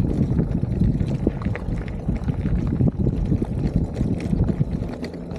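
Bicycle tyres rolling over a gravel path, a steady rumble with many small crunches and clicks from the stones, with wind buffeting the microphone.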